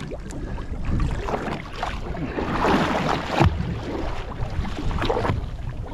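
Water splashing and sloshing against the boat's side as a large pink snapper, held by the tail to revive it before release, kicks in the water, with a louder splash about three and a half seconds in. Wind runs on the microphone throughout.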